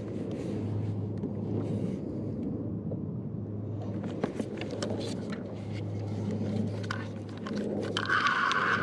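Wind rumbling on the microphone and water slapping the kayak, with scattered small knocks. About eight seconds in, a fishing reel's drag starts screaming loudly as a fish strips line off the flat-lined rod.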